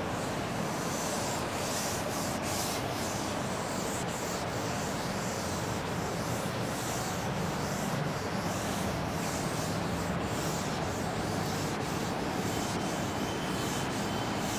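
Chalkboard duster wiping across a chalkboard in repeated rubbing strokes.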